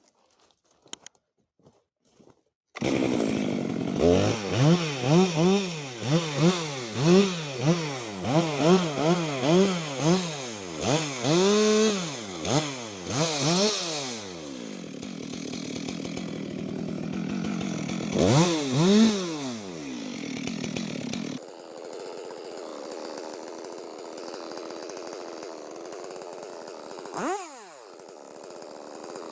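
Two-stroke chainsaw bursting into sound about three seconds in, then revved in quick repeated throttle blips, its pitch rising and falling about once every two-thirds of a second. It then runs steadier with another rev, and later runs more quietly with a couple of brief revs near the end.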